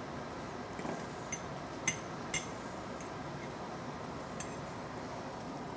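Metal forks clinking against plates as two people cut and eat: four or five short sharp clinks, the loudest about two seconds in, over a steady room hiss.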